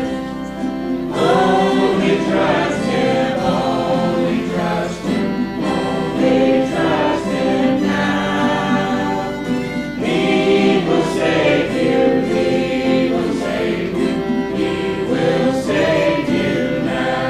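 A choir singing a gospel hymn with instrumental accompaniment, in phrases of held notes.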